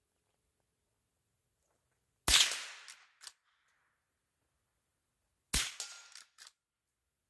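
Marlin 39A .22 LR lever-action rifle fired twice, about three seconds apart. Each shot is a sharp crack trailing off over about half a second, followed by quieter clacks of the lever being worked to chamber the next round.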